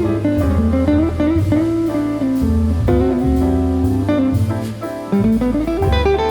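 Background music: a bluesy guitar tune with sliding notes over a steady bass line.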